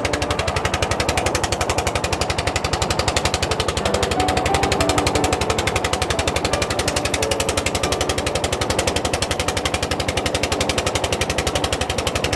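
Motor boat engine running steadily with a rapid, even chugging beat.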